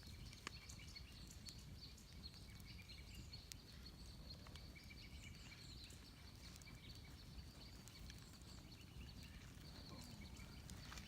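Near silence: quiet outdoor ambience with a low rumble, faint repeated bird chirps and a few soft clicks.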